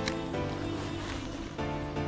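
Background music: sustained chords that change every second or so over a steady beat.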